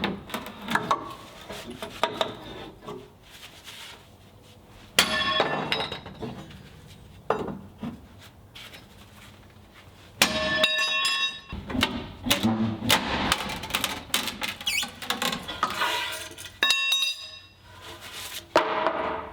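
Building work: a run of knocks, thunks and hammer blows, with metallic clinks and ringing strikes.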